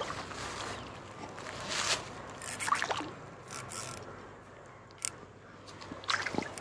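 A hooked fish splashing at the surface of a pond as it is reeled in on a rod: a string of short, separate splashes a second or so apart.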